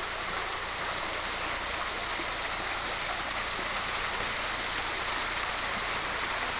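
Steady rushing of water from a small waterfall and its stream: an even, unbroken hiss.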